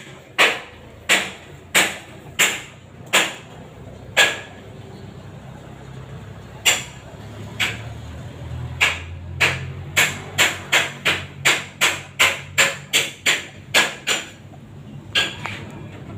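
A series of sharp knocks with a short ring after each. They come at an even pace, a little under a second apart, then pause briefly. After that they return in a quicker run of about three a second and end with two last strikes.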